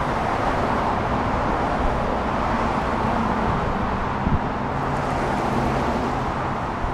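Steady mechanical running noise with a faint low hum underneath, holding an even level, and a small bump about four seconds in.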